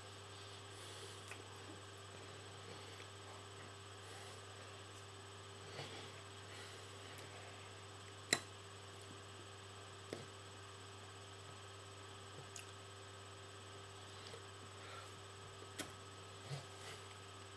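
Steady low electrical hum of room tone, broken by a few faint taps and brushes of hands meeting each other and the shirt during ASL signing. The sharpest tap comes about eight seconds in, with smaller ones about ten and sixteen seconds in.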